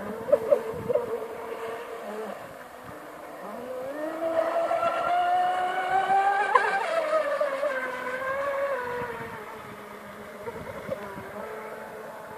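Brushless electric motor of a Robbe Unlimited RC speedboat (Turnigy SK3 1900kv) whining at high speed, with a few sharp clicks in the first second. About four seconds in the pitch climbs as the boat speeds up, peaks a little past the middle, then falls away as it passes and slows.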